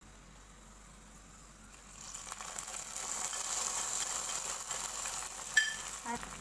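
Hot ghee with fried cashews and raisins poured from a small frying pan onto the sago payasam, sizzling as it hits the milk. Near the end there is one sharp metal clink.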